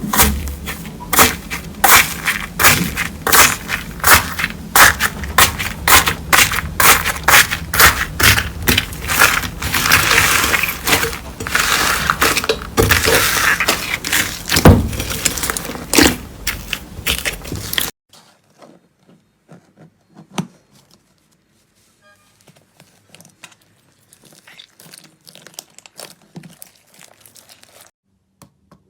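Slime being squeezed and pressed close to the microphone, giving a dense run of crackling and popping clicks. About eighteen seconds in it cuts to much fainter, scattered clicks.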